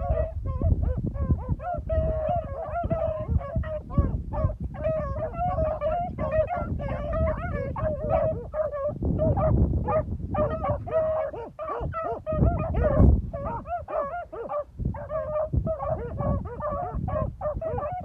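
A pack of beagles baying in full cry, several voices overlapping without a break as the hounds run a scent trail. Wind rumbles on the microphone underneath.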